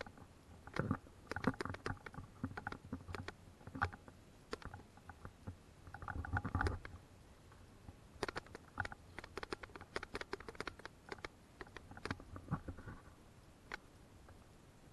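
Footsteps of hikers on a wooden plank path and the leaf litter and twigs around it: irregular clicks, taps and crunches, with a denser crunching spell about six seconds in.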